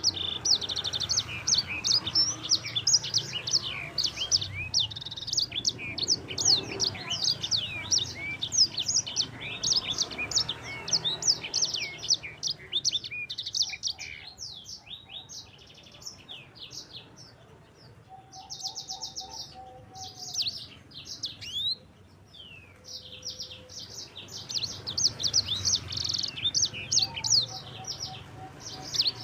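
Sanger songbird singing a long, rapid twittering song of fast chirps and rolling trills. About halfway through it thins out into sparser notes and a brief buzzy trill, then builds back into dense song.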